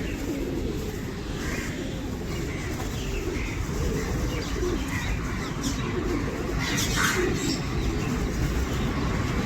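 A large flock of birds calling all at once, a dense mass of low wavering calls with scattered higher chirps. There is a brief louder burst about seven seconds in.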